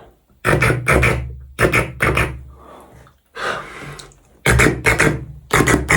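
Beatboxing: a person making sounds with the mouth in four or five bursts of about a second each, with short gaps between them. The bursts mix a deep hum with sharp hissing and clicking sounds.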